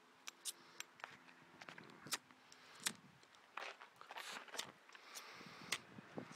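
Faint footsteps crunching irregularly on gravel and rubble, a dozen or so scattered steps.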